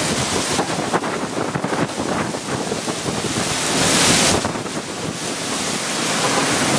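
Strong gusty wind rushing, with a louder gust about four seconds in.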